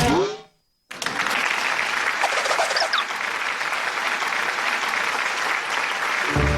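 Audience applauding, starting about a second in and going on for about five seconds. A short vocal sound comes at the very start, and music comes in right at the end.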